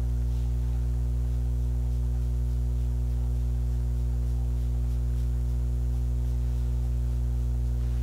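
A loud, steady electrical mains hum: a low buzz with a ladder of overtones that does not change.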